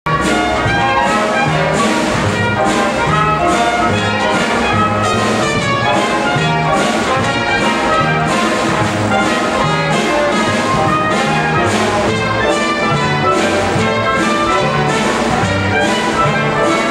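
Big band playing jazz live: brass and saxophones over low bass notes and drums keeping a steady beat.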